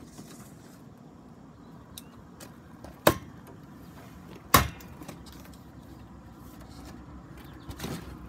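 Steel scaffolding frames handled in their cardboard box: a few faint ticks, then two sharp knocks about a second and a half apart, over a low steady background rumble.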